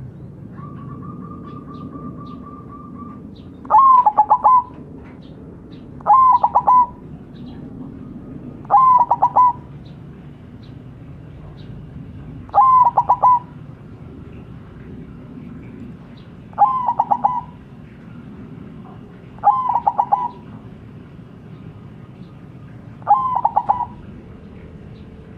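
White zebra dove (perkutut) cooing: seven short, stuttering coo phrases, each under a second, repeated about every three seconds.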